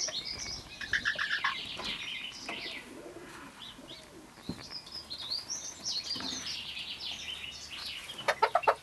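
Roosting chickens in a coop: chicks peep in high chirps through most of the stretch, and near the end a hen lets out a quick run of about half a dozen loud clucks.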